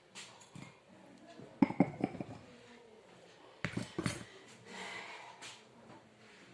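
Dishes and small utensils being handled: scattered clinks and knocks, loudest about a second and a half in and again near four seconds, with a short breath-like rush around five seconds.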